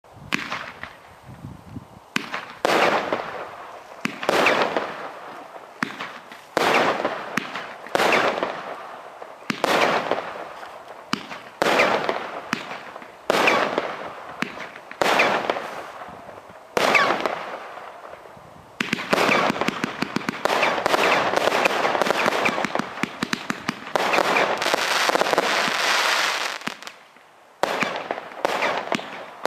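Pyrotastic firework firing aerial shots one after another: a sharp bang every second or two, each trailing off in a crackle. About two-thirds in, the shots run together into dense, continuous crackling, which breaks off briefly before more shots.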